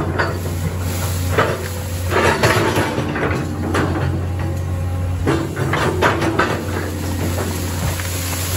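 An engine runs steadily under a run of irregular metallic clanks and knocks.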